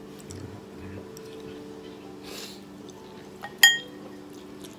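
A single sharp clink with a short ringing about three and a half seconds in, as chopsticks strike a ceramic bowl of noodles, over a steady low hum.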